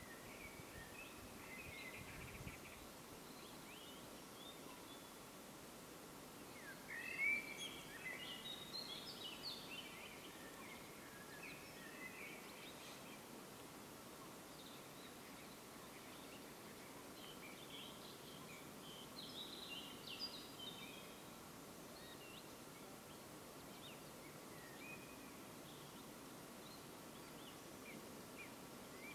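Wild songbirds singing faintly over a quiet outdoor hiss. The song comes in busier spells about seven seconds in and again near twenty seconds, with scattered chirps between.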